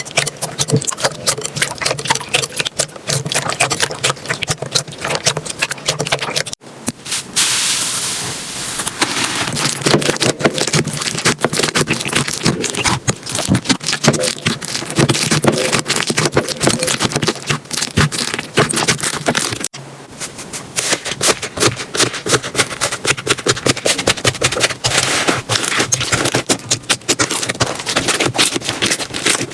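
Slime being squeezed, poked and stretched by hand: a dense run of small wet pops and crackles. The sound changes character abruptly twice, at about a quarter and two-thirds of the way through.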